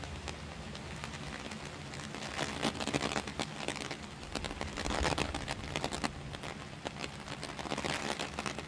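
Heavy rain falling: a steady hiss with a dense patter of close drops that swells louder a few times.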